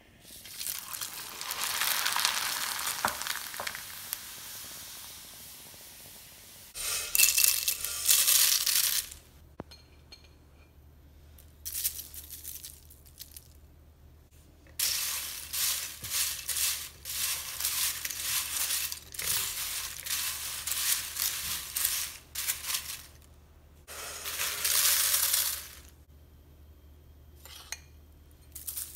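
Corn flakes dropped into hot oil in a steel frying strainer, sizzling loudly at first and fading over several seconds. Then several separate bouts of crisp rattling and rustling as the fried corn flakes are tossed in a glass mixing bowl.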